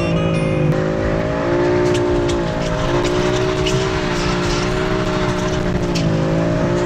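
BMW M4's twin-turbo straight-six running steadily at speed, its pitch dipping briefly about a second in and again near the end, over road and tyre noise.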